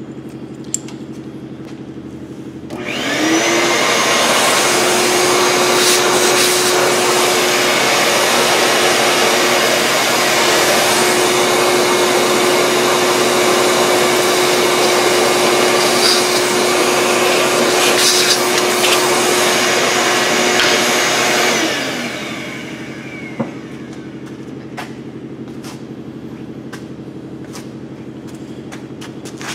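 A 90-degree angle drill spins up about three seconds in and runs steadily for about nineteen seconds, drilling out a broken exhaust manifold bolt in a Ford V10 cylinder head through a clamped drill guide, then winds down.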